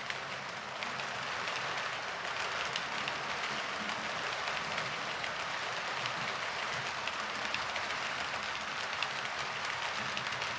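H0-scale model passenger coaches rolling past on model track: a steady rattle of small metal wheels on the rails, full of fine clicks.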